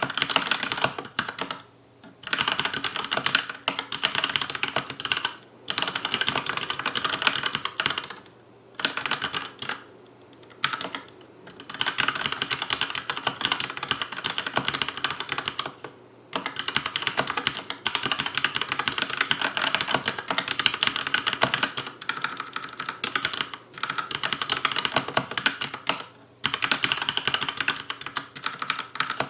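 Fast touch-typing on a Logicool K835 tenkeyless mechanical keyboard with TTC linear red switches: a dense run of key clacks, broken by several short pauses.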